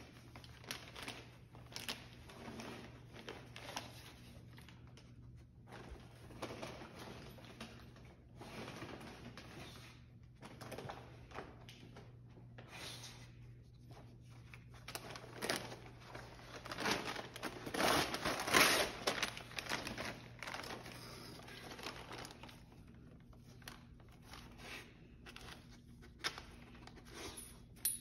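Gift wrapping paper crinkling and tearing as a dog noses and rips at a wrapped present, in irregular rustles that are loudest about two-thirds of the way through.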